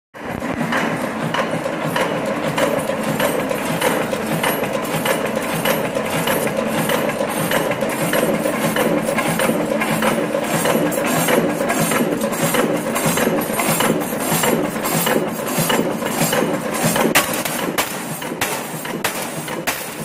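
Washing-machine damper suspension-rod making machine running: a steady machinery noise with frequent knocks, about two or three a second, which stand out more clearly near the end.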